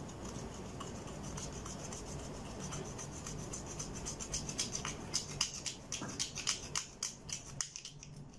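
A plastic stick scraping pressed highlighter powder out of a makeup compact's pan: rapid scratchy strokes, about four a second, that grow louder and sharper from about three seconds in and stop shortly before the end.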